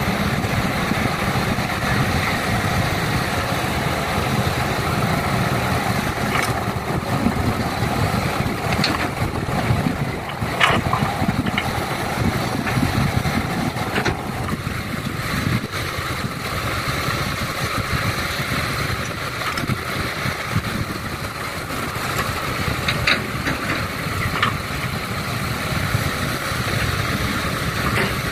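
Heavy diesel machinery of an excavator loading dump trucks running steadily, with a few sharp knocks and clanks. The engine note shifts about halfway through.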